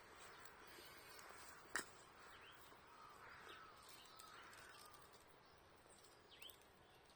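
Faint birds chirping with short rising and falling notes over a low hiss, and a single sharp crackle from a wood campfire about two seconds in.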